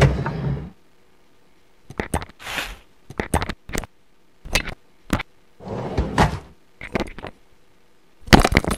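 Added sound effects of a wooden drawer and kitchen utensils being handled: a run of short knocks and clicks with a couple of brief sliding scrapes, ending in a quick cluster of sharp clicks.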